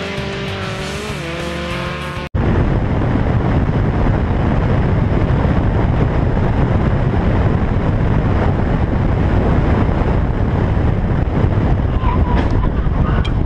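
Guitar music for about two seconds, then an abrupt cut to loud, steady wind and road noise from a camera mounted on the outside of a car driving at speed.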